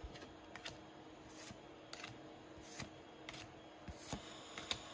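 Pokémon trading cards being flipped through by hand: faint, irregular soft flicks and rustles as each card slides off the front of the stack and onto the back.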